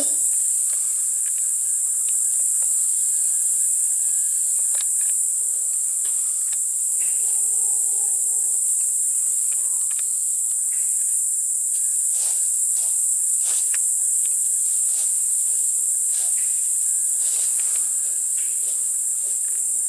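A steady, high-pitched drone of rainforest insects, with occasional faint clicks.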